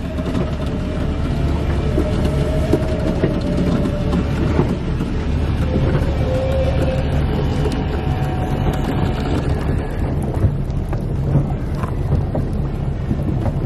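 Boat motor running steadily, with wind buffeting the microphone.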